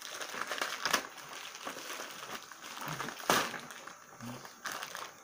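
Plastic courier mailer bag crinkling and tearing as it is ripped open by hand. Two louder bursts come about a second in and a little past the middle.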